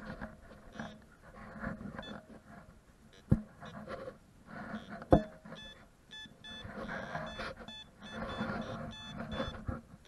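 Teknetics Minuteman metal detector giving short, rapidly repeated beeps as its coil passes back and forth over a buried target, mostly in the second half. Brushing of the coil through grass and two sharp knocks come earlier.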